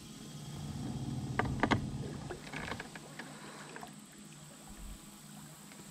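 Bass boat's electric trolling motor humming low and steady, fading after about two seconds, with a couple of sharp knocks about a second and a half in.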